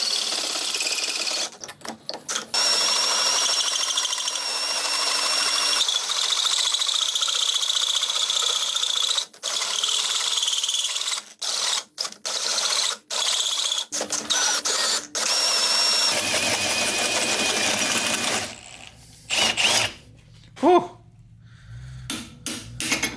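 Milwaukee cordless drill driving a Lenox hole saw into a thick cast turbo exhaust manifold: a steady grinding cut with a high squeal, stopping and starting several times. The drilling ends about three-quarters of the way through, followed by a few clanks.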